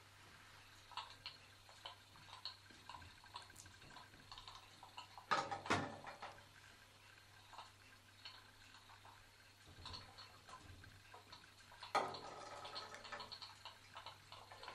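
Rattandeep tin pop-pop speed boat running on the water, its steam engine giving a faint, fast ticking. Two louder knocks come about five and a half and twelve seconds in.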